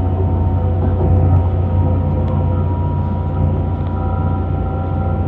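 Passenger train running, heard from inside the carriage: a steady low rumble with several faint steady whining tones above it.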